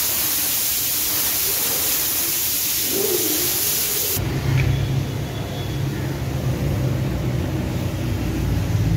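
Pressure-washer spray hissing steadily against a car's underside. About four seconds in it cuts off abruptly, giving way to a steady low mechanical rumble.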